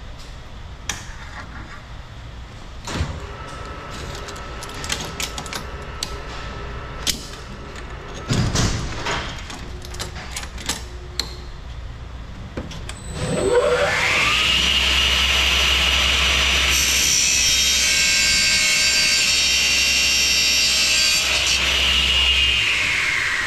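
Scattered clicks and knocks of handling, then a CTD F255RHC 14-inch 3 hp chop saw is switched on about halfway through. Its motor and blade spin up with a rising whine and run at speed with a steady whine. Near the end it is switched off and winds down with a falling whine.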